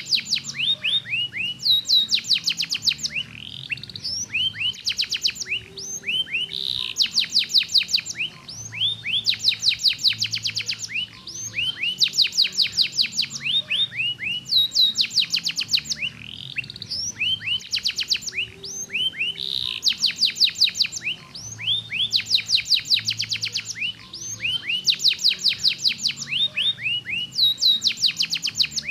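Domestic canary singing: phrases of fast trills made of quick, sharply falling notes, one after another with short gaps every couple of seconds.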